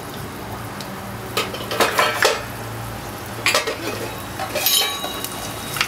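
A metal utensil clinking and scraping against a frying pan in several short bursts while sliced onions are stirred in hot mustard oil. A faint sizzle of frying runs underneath.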